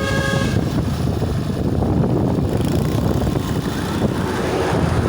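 Steady rumble of road traffic with wind buffeting the microphone, and a short pitched beep at the very start.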